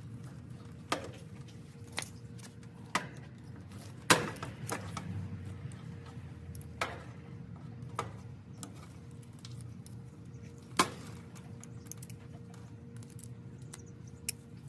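Scattered sharp clicks and light knocks, about nine of them, from handling the wires and parts during an air conditioner capacitor job, the loudest about four seconds in, over a low steady hum.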